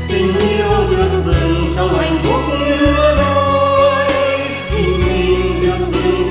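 Background music: a slow song with long held melody notes over steady bass and a light, regular beat.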